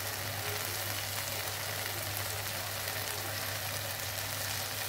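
Thick red lobia (kidney bean) masala sizzling in a steel karahi on the stove: a steady hiss with faint crackles over a steady low hum.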